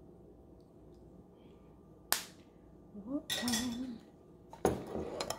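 Kitchen utensils handled on a countertop: a sharp knock about two seconds in, a short rattle a second later, then a spoon starting to clink and scrape in a mixing bowl near the end as the glaze is stirred.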